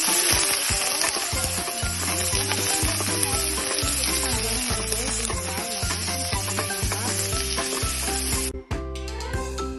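Diced pork sizzling as it is sautéed in hot oil with garlic and onion in a stainless steel pot, stirred with a wooden spatula. The sizzle drops away sharply about a second before the end.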